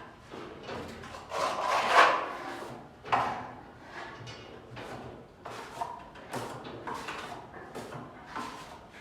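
Repeated rubbing and scraping strokes of a hand tool working a wall surface during wall-painting work, several a second and uneven, with the longest, loudest stroke between about one and a half and two seconds in and a sharp scrape about three seconds in.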